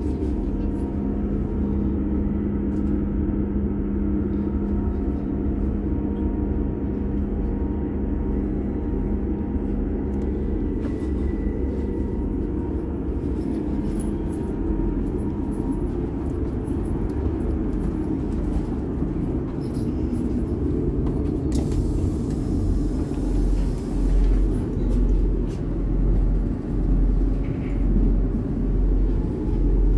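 Class 158 diesel multiple unit running, heard from inside the passenger saloon: a steady low rumble from the underfloor diesel engine and the wheels on the rails. A steady hum fades out about a third of the way in, and near the end a regular low throb at about one beat a second sets in.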